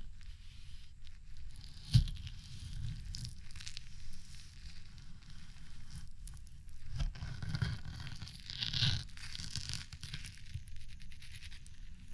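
Knife cutting through frozen jelly, with one sharp knock about two seconds in and a louder run of cutting about seven to nine seconds in.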